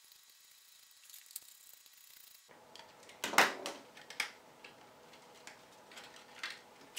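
Light clicks and knocks of a screwdriver, screws and 3D-printed plastic parts as a motor is unscrewed and taken out of its back plate. It is quiet for the first couple of seconds, then comes a handful of scattered taps, the sharpest about three seconds in.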